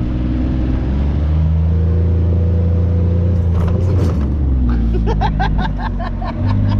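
Kawasaki Mule UTV engine running under load, its pitch rising about a second in as it speeds up and dropping back around the middle. Near the end a quick run of short high cries sounds over the engine.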